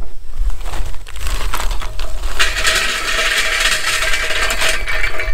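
Charcoal briquettes poured from a plastic bag into a PK GO grill's cast aluminium bowl, clattering and rattling as they land. A few scattered clicks come first, then a steady heavy clatter from about two seconds in.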